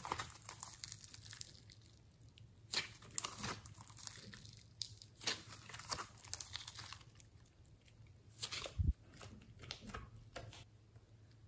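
Glossy slime mixed with clay being squeezed, twisted and stretched by hand, giving irregular clusters of sticky crackles and pops.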